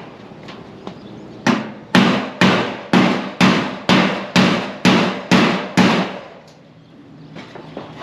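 A hammer striking about ten times in a steady rhythm, roughly two blows a second, each blow ringing briefly; the blows start about a second and a half in and stop about two seconds before the end.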